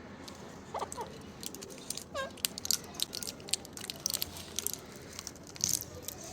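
Parrots eating, a steady run of small crunches and clicks from beaks working food, with a few short squeaky calls about one and two seconds in.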